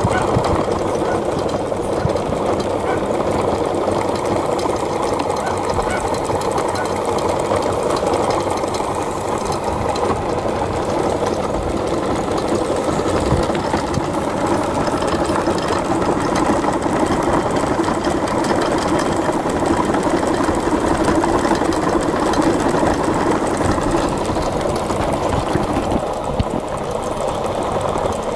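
Homemade engine rig running with its flywheel spinning fast: a loud, steady, rapid mechanical clatter that holds even throughout.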